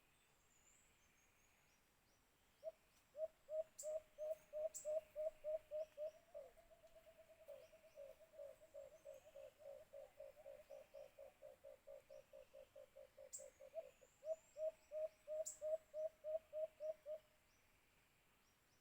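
White-eared brown dove calling: a long series of low hooting notes that start spaced, speed into a quick run in the middle and slow to spaced notes again. Faint high chirps of other small birds sound behind it.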